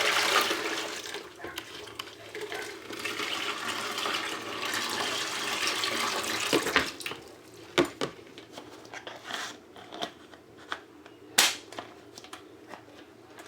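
Running tap water, which stops about seven seconds in. It is followed by scattered sharp clicks and light knocks as the dishwasher filter is handled.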